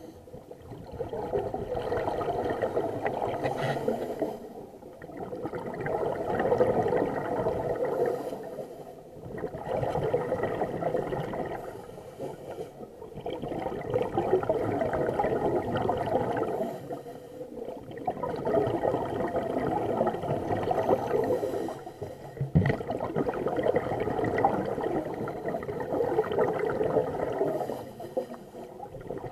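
Scuba regulator exhaust bubbles rushing past an underwater camera in long swells, one per exhalation, roughly every four to five seconds, with short dips between them while the diver inhales. A single sharp click about 22 seconds in.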